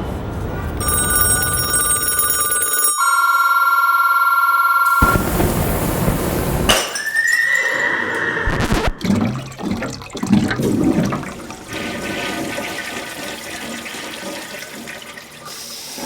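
A montage of short, unrelated sound-effect samples cut one after another. It opens with steady ringing tones lasting a few seconds, like a telephone or alarm bell, then a rushing noise, a brief arching tone, and assorted knocks and clatter.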